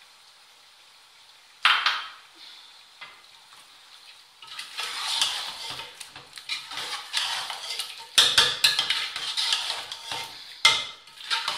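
Long metal ladle stirring chicken, tomatoes and yogurt in a metal cooking pot, scraping and clanking against the pot, with the food sizzling as it fries in the masala. A single sharp knock comes about two seconds in, and the clanking grows louder and denser over the last few seconds.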